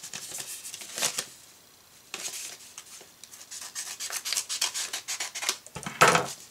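Paper mail packaging being opened by hand: scratchy rustling and scraping in bursts, with a short lull about two seconds in and a louder rustle near the end.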